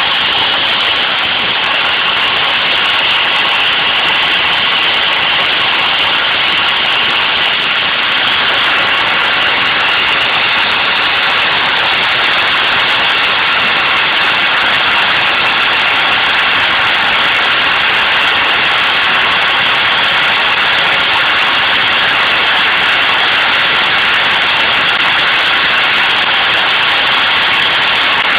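CNC router spindle running steadily under load as its bit carves wood, a continuous high-pitched machine noise that holds even throughout.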